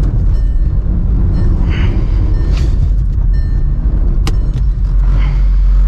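Car running with a loud, steady low rumble, and one sharp click about four seconds in.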